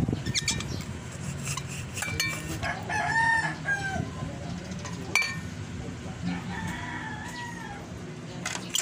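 A rooster crowing about three seconds in, with a second, fainter call near the end. Light clinks of metal lamp parts being handled run underneath, with one sharp click about five seconds in.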